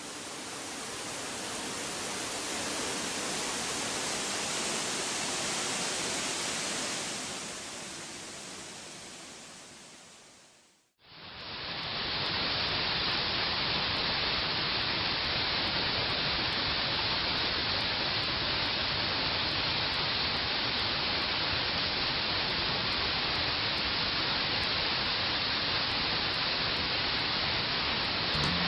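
Rushing water, swelling and then fading, breaks off suddenly about eleven seconds in. The steady rush of a waterfall plunging into a pool follows.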